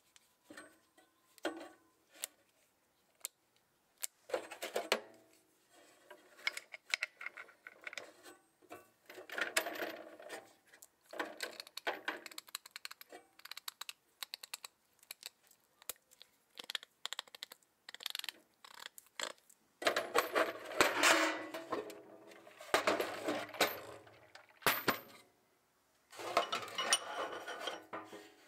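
Steel hand tools (ratchets, sockets and extension bars) clinking and clattering against each other and a steel tool box as they are handled. The sound comes as scattered sharp clicks and several longer bursts of rattling, the loudest in the second half.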